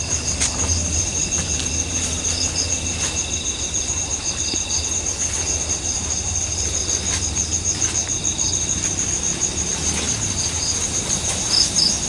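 Night insects, crickets, chirping steadily in a fast, even pulse, with other insects chirping on and off over a low rumble.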